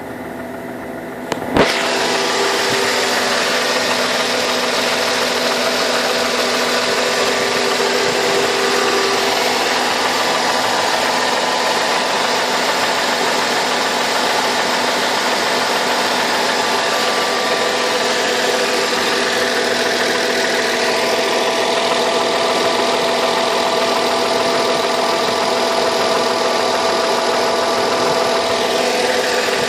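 Mercedes-Benz W211's M112 V6 petrol engine idling steadily with a knock, the fault the owner is recording. The sound is muffled for the first second and a half and ends that stretch with a sharp click.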